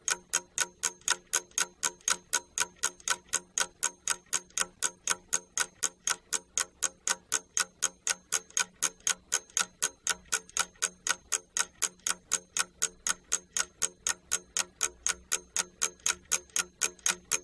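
Clock-ticking sound effect, an even run of sharp ticks at about four a second, counting down the time given to complete a task.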